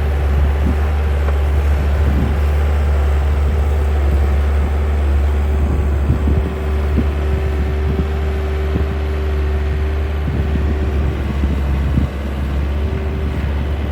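Skid steer engine running steadily, a low rumble with a constant drone, with scattered knocks and clanks throughout.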